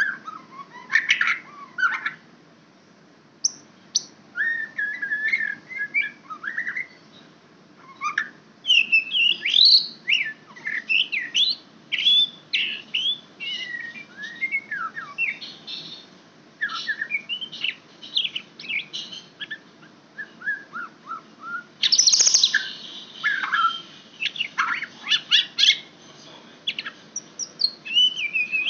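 White-rumped shama singing a varied song of whistled phrases and chirps, broken by short pauses, with a harsher burst about two-thirds of the way through.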